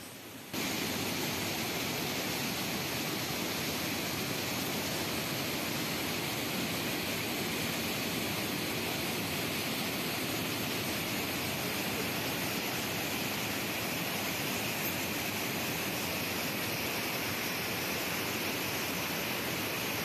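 Steady rush of brown floodwater swollen by heavy rain, cutting in suddenly about half a second in and holding even throughout.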